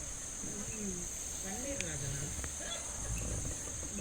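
Insects, crickets or cicadas, droning steadily in one unbroken high-pitched band, with faint murmuring voices underneath.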